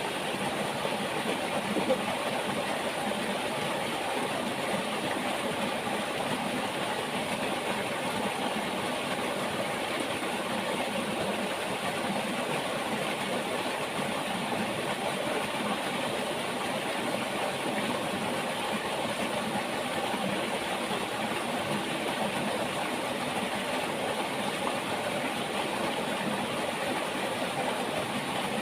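River water flowing, a steady rushing noise that does not change, with one brief tap about two seconds in.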